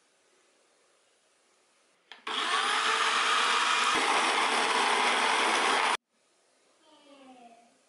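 Bodum Bistro electric burr coffee grinder grinding coffee beans: a loud steady grinding noise starts about two seconds in, runs for nearly four seconds and cuts off suddenly.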